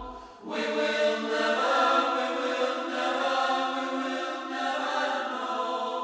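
Background music: a quiet passage of sustained, choir-like chords with no beat, coming in about half a second in.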